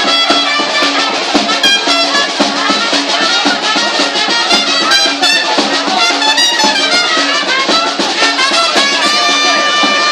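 Brass band music with trumpets over a steady beat of bass drum and snare drum, played loudly without a break.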